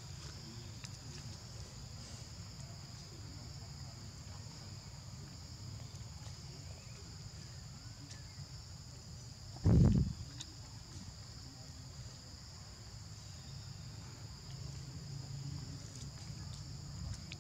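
Insects chirring steadily in a high, even band over a low rumble, with one loud, dull thump about ten seconds in.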